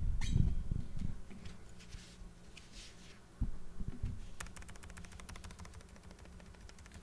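Fast, even run of key clicks from typing on a keyboard fitted with Kailh Deep Sea Lonely Island silenced linear switches, starting about four seconds in. Before it come a few light clicks and a dull knock about three and a half seconds in.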